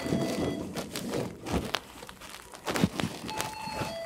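Rustling and knocking of a handheld camera being carried and jostled, cloth rubbing on the microphone, with a couple of short steady beeps, one about as the sound begins and one near the end.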